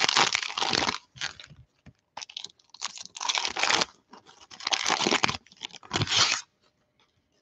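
The plastic cellophane wrapper of a Panini Prizm cello pack of trading cards being torn open and crinkled in several rustling bursts, which stop about a second before the end.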